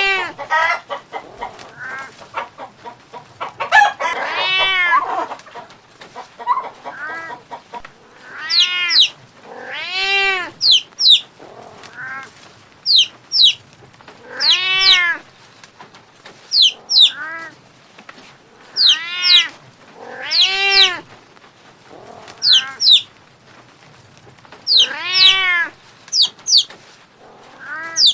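Chickens calling: a hen's drawn-out call, rising and falling in pitch, repeated about every two seconds, with short high peeps in between.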